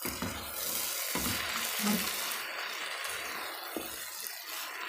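Sliced onions, tomatoes and green chillies sizzling in hot oil in a pot as they are stirred with a spatula. The sizzle comes up suddenly at the start and stays steady, with a few low knocks of the spatula against the pan under it.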